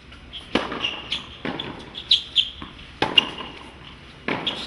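Tennis ball struck by rackets in a serve and rally on a hard court: four sharp pops about a second and a half apart, the first the serve. Short high squeaks from the players' shoes come between the hits.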